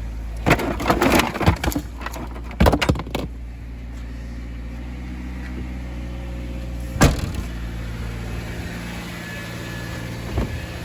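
Vehicle engine running steadily while driving, with two short bursts of clattering knocks in the first few seconds and one sharp knock about seven seconds in.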